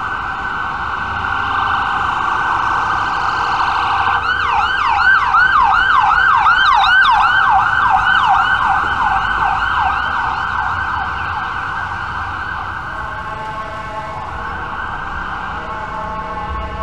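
Emergency vehicle siren sounding, switching about four seconds in to a fast yelp of repeated sweeps, about three or four a second, which is loudest in the middle and fades away after about ten seconds.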